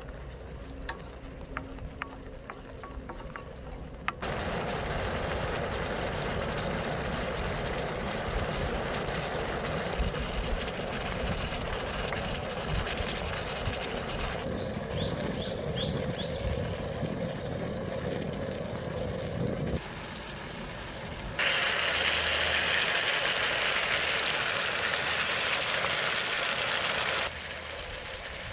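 Fish fillets and vegetables sizzling in sauce on a hot griddle, stirred with a wooden spatula. The sound is cut together in stretches of differing loudness, loudest and brightest for several seconds near the end.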